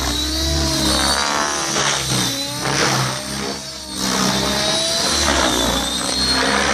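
Blade 700X electric RC helicopter in flight: the main rotor and brushless motor run with a pitch that rises and falls as the blades load and unload through the manoeuvres, over a high steady whine. The sound dips briefly about halfway through.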